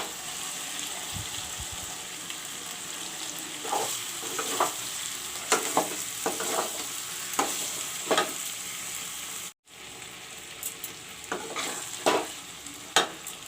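Fried chicken pieces sizzling in hot mustard oil and browned masala in a pan, with a spoon stirring and scraping against the pan about once a second. The sound breaks off for an instant just after halfway.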